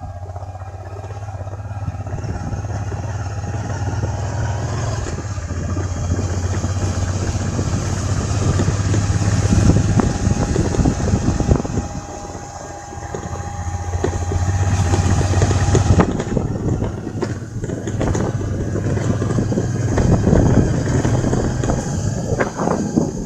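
Vehicle travelling along a road: a steady low engine hum under rough, crackling road and wind noise that eases briefly partway through and then comes back.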